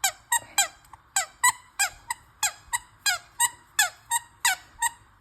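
Rubber squeaky toy squeezed over and over, about fifteen short squeaks that each drop in pitch, roughly three a second.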